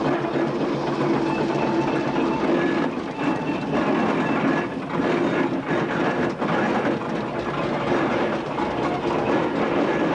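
Steam road rollers, one a Fowler, running as they drive slowly past: a continuous mechanical clatter from the engine and iron rolls, with a few faint steady tones underneath.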